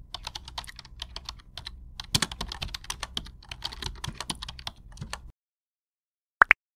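Typing sound effect: rapid, irregular keystroke clicks for about five seconds as text types itself out, then silence and a quick pair of short rising blips near the end.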